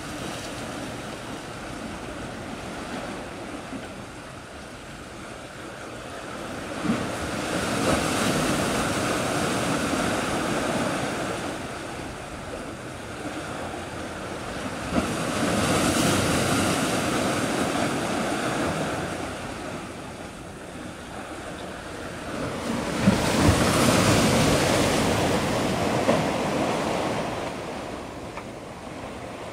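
Waves breaking on the shore: three swells of surf, each building with a crack and washing out over several seconds, about every seven to eight seconds, with some wind on the microphone.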